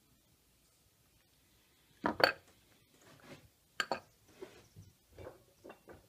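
Hand carving tools knocking and clinking against each other and the wooden workbench as they are handled and one is set down: two sharp knocks about two seconds in, another just before four seconds, then softer clicks and rustling.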